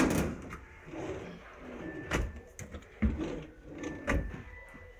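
Kitchen cabinet drawers on a white lacquered unit being pulled open and pushed shut, with about four knocks as they close or hit their stops: at the start and about two, three and four seconds in.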